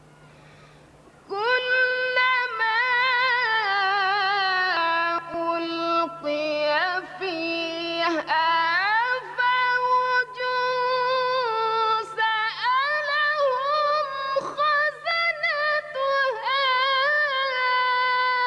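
A woman reciting the Quran in the melodic competition (mujawwad) style. About a second in she begins long held notes with wavering pitch and sliding ornamented turns, broken by brief pauses for breath.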